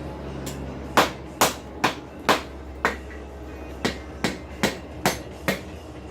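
Wooden mallet blows on a hot steel rasp over the anvil horn, bending the rasp's tip. About ten sharp strikes come in two quick runs with a short pause between, over a steady low hum.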